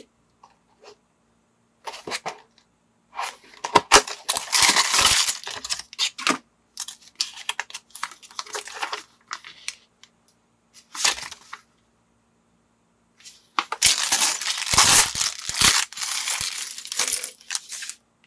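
Small plastic building bricks and minifigure parts clattering and rattling onto a hard tabletop in several bursts of clicks, the longest near the end as the loose pieces are tipped out into a pile.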